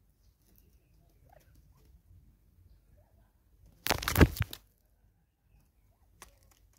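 Natal spurfowl feeding at a seed feeder: a loud burst of rapid knocks and scrapes close to the microphone about four seconds in, lasting under a second. A few sharp pecking taps follow near the end.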